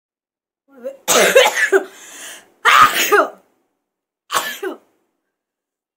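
A woman sneezing three times, about a second and a half apart, the last one weaker.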